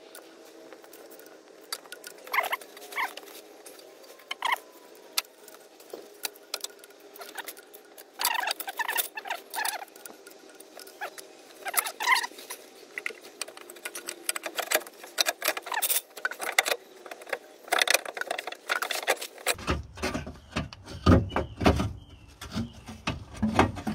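A pry bar levering a Ford Mondeo Mk4 1.8 TDCi's alternator out of its mounting bracket: irregular metal clinks, knocks and scrapes with short squeaks, coming thicker in the second half as the alternator works loose.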